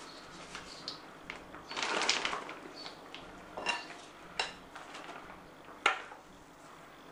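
Spoon scraping and clinking against a glass mixing bowl of thick batter, with a few sharp knocks, the loudest about six seconds in.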